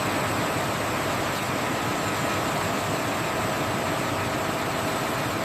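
Steady machine noise: an even hiss with a few faint, steady hum tones, unchanging throughout.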